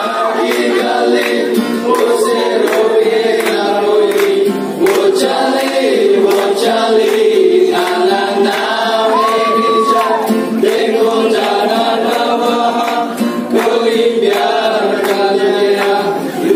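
A group of men singing together in unison and loose harmony, with acoustic guitar strummed in a steady rhythm.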